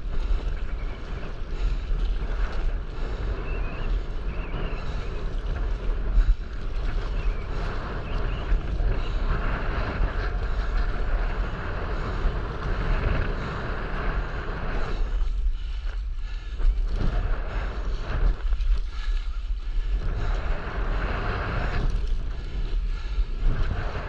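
Wind buffeting the camera microphone over choppy sea, with water sloshing and splashing close by.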